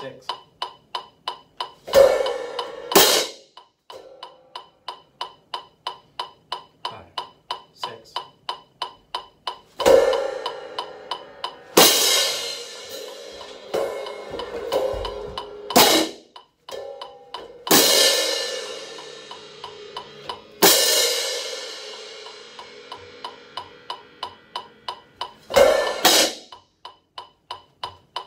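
A pair of Zildjian hand cymbals crashed together about ten times, some crashes left to ring for a few seconds and others cut short, over a steady fast metronome click of about three ticks a second.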